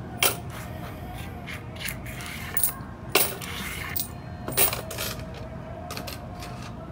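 Coins clinking as they are handled and set down at a shop checkout counter during a cash payment: several separate sharp metallic clinks, a second or so apart.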